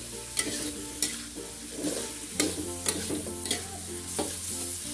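Metal spatula scraping and clinking against an aluminium wok as chopped genjer greens are tossed, about two strokes a second. The seasoning sauce sizzles underneath.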